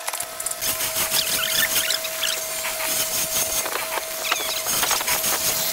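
Hollow-chisel mortising machine running with a steady motor hum, its square chisel and auger plunging into a hardwood block with repeated short, high squeals.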